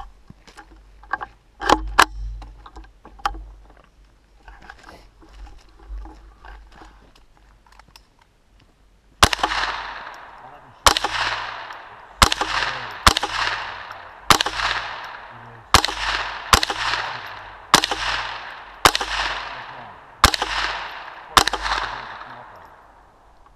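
Smith & Wesson M&P 15-22 .22 rimfire rifle firing about a dozen single shots at an irregular pace, each a sharp crack with a ringing echo. The shots come after a few sharp clicks and faint talk.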